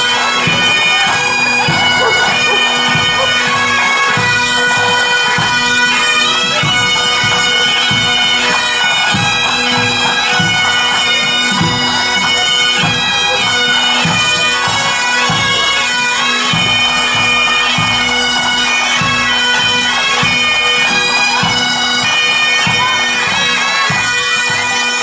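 Pipe and drum band playing on the march: bagpipes with their drones held steady under the chanter melody, over a steady drumbeat.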